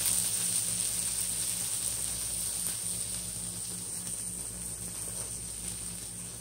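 Two turkey burgers sizzling in a hot Blue Diamond ceramic nonstick pan that has been taken off the burner. The steady hiss slowly dies away as the pan cools.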